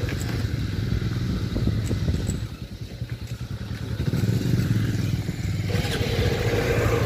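Motorcycle engine running at low speed as the bike rolls slowly, heard from the rider's seat. It goes quieter for about a second in the middle, then picks up again.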